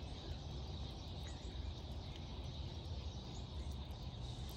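Steady outdoor background noise: a low rumble with a faint high, even hiss, and a few faint small clicks.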